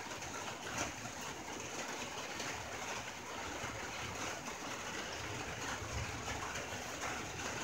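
Rain falling steadily on a tin roof: a constant hiss of rain with scattered sharper drop hits on the metal.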